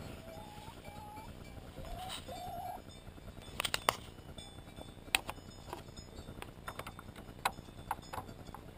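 Brown laying hens clucking in short low calls, then sharp taps as they peck close up, coming quicker near the end.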